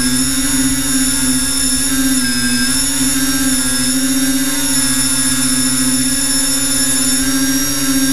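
Electric motors and propellers of an FPV tricopter whining steadily in flight, the pitch dipping slightly about two seconds in and wavering with the throttle.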